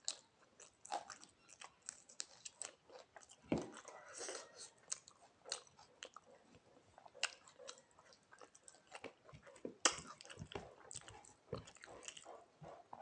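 Close-up eating sounds: a person chewing and biting food, with many small crisp crunches and mouth clicks at an uneven pace.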